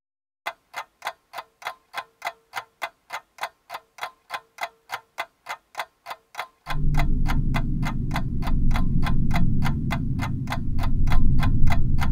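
Steady, rapid clock-like ticking, about three ticks a second. About six and a half seconds in, a loud, low rumbling drone joins under the ticks and carries on.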